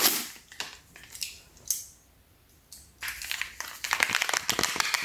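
Packaging being handled: a few taps and rustles, a short pause, then a quick run of crinkling and clicking from about three seconds in.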